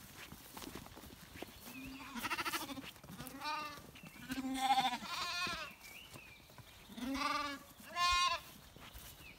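Bottle-fed Zwartbles lambs bleating, about six calls of half a second each, the ones in the middle and at the end loudest. They are hungry lambs calling for their bottle feed.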